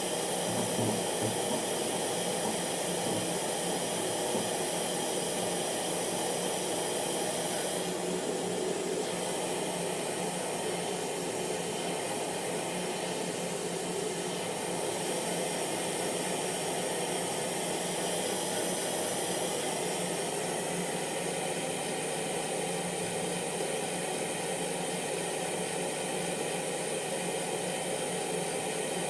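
Hair dryer running continuously: a steady blowing rush of air with the motor's whine underneath, holding one even level.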